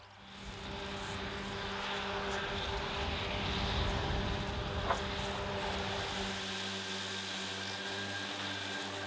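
Tractor engine running steadily under load while driving a front-and-side triple disc mower combination through standing grass, the mower discs adding a broad whirring rush; it fades in at the start, with one short sharp click about five seconds in.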